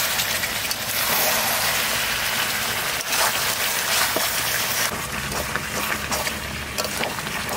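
Chicken and potato curry sizzling in a metal karahi: a steady hiss as the juices released from the meat cook off, with a few clicks and scrapes of a metal spatula stirring it.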